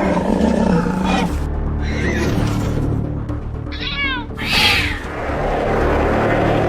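Cat meowing a few times over background music, including a short call falling in pitch about four seconds in.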